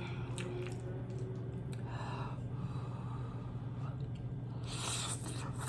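A person breathing out audibly in two breathy exhales, one about two seconds in and a stronger one near the end, with a few faint mouth clicks over a steady low hum.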